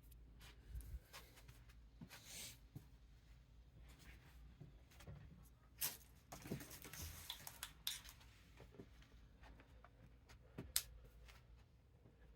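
Faint rustling and scattered small clicks from hands handling a folding knife and its packaging.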